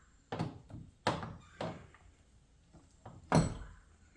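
Metal internals of a Hyundai/Kia 8-speed automatic transmission knocking and clunking as they are pulled out and set down: about five separate knocks, the loudest near the end.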